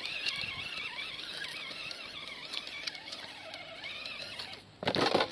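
RGT Jimny RC rock crawler's electric motor and gearbox whining as it climbs rock, the pitch wavering up and down with the throttle. A sudden loud rushing noise comes in near the end.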